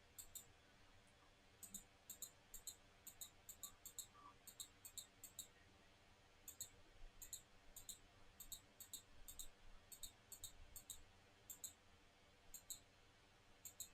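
Faint, quick clicks in short irregular runs, often two at a time, over near silence.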